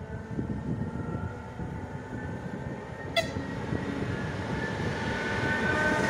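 Czech Railways class 460 electric multiple unit approaching and drawing level, its rail rumble and a steady motor whine growing steadily louder. A very short horn blip sounds about three seconds in.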